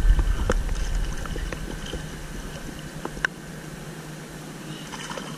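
Water lapping and trickling around a kayak as it is moved through the water toward the bank, with a few light knocks. A low rumble fades away over the first couple of seconds.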